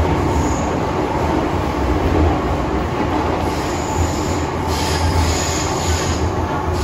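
MTR M-train metro car running through a tunnel, heard from inside the car: a steady rumble of wheels and running gear, with a high-pitched wheel squeal coming and going in the second half.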